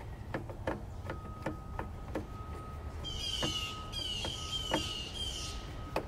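Screwdriver clicking and scraping against relay terminal screws as wires are tightened down, a quick irregular series of small metal clicks. Birds chirp in quick high bursts during the second half.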